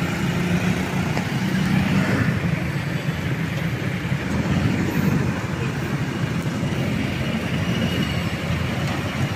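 Steady street traffic noise at a road junction, with the low hum of an idling engine strongest in the first couple of seconds.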